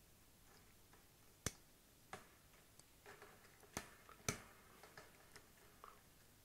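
Small, faint metallic clicks and ticks of needle-nose pliers gripping and working a thin bent retaining wire out of a slotted metal bracket, with four sharper clicks spread through among fainter ticks.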